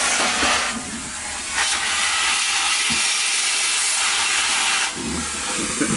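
Vacuum cleaner running with a loud, steady rushing hiss of air; the hiss dips for a moment about a second in and again near the end.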